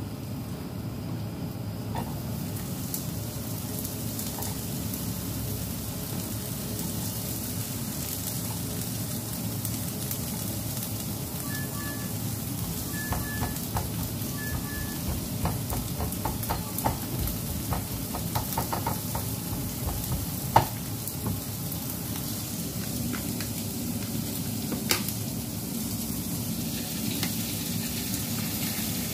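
Minced garlic, then onion pieces, sizzling in hot oil in a nonstick frying pan, with a spatula scraping and clicking against the pan as it stirs. A few sharp knocks stand out, the loudest about two-thirds of the way through, and three short beeps sound near the middle.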